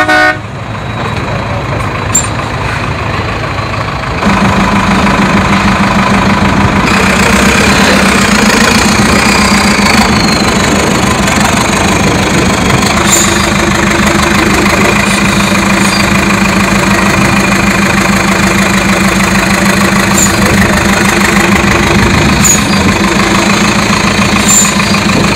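Avia trial truck's diesel engine running steadily as the truck crawls over rough, sloping ground, getting much louder about four seconds in.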